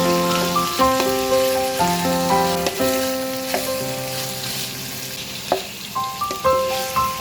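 Background music with a simple melody of note-by-note tones, over the hiss of food sizzling as it fries in a pan, with a single sharp click about five and a half seconds in.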